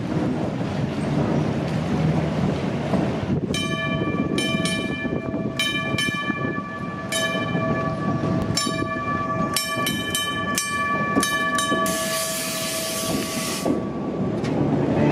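1913 streetcar and its diesel generator car running past, while the streetcar's gong is struck many times in quick clusters from a few seconds in, the bell ringing on between strikes. A burst of hiss comes near the end.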